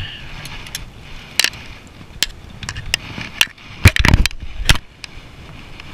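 Handling knocks in a fishing boat as a long-handled landing net is worked over the side: scattered clicks and knocks, with a cluster of loud thumps about four seconds in.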